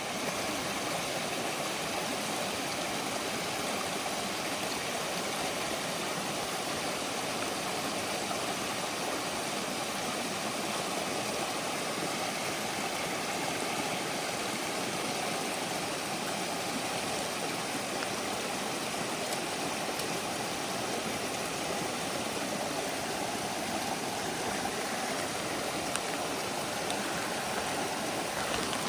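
Steady rushing water, an even noise that holds at the same level throughout.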